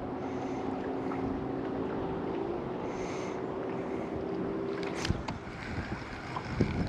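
A steady low motor hum with wind noise on the microphone; the hum stops about five seconds in, with a sharp click.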